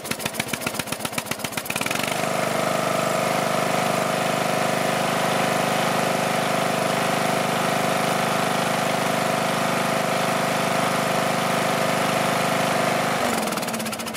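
Briggs & Stratton Intek 15.5 hp single-cylinder engine on a riding mower cranked by its electric starter, catching about two seconds in and running steadily on its newly fitted replacement ignition coil. Near the end it is shut off and winds down with falling pitch.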